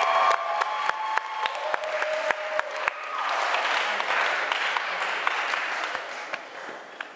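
Audience applauding at the end of a song, while the song's last held note fades out in the first couple of seconds. The clapping swells about three seconds in, then dies away.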